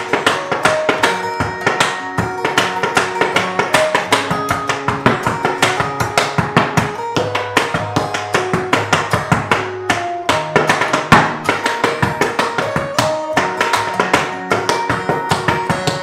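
Tap dancing: metal taps on tap shoes striking a wooden tap board in quick, dense rhythms, over acoustic guitar music.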